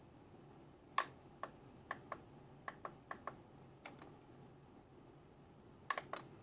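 About a dozen sharp, separate clicks from a laptop being operated. They come singly and in pairs over a few seconds, then three close together near the end.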